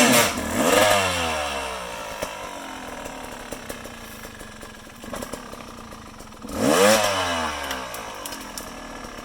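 Yamaha off-road vehicle's engine revving hard twice, at the start and again about seven seconds in, pitch rising then falling away. It runs lower and quieter in between as it works through a gully.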